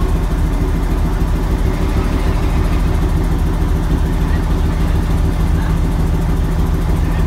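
Diesel locomotive engine idling: a loud, steady low drone with a constant hum.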